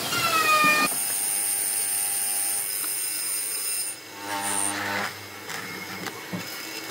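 A woodworking power tool running with a steady high whine, its pitch sliding during the first second. It drops away about four seconds in, leaving quieter, uneven machine noise.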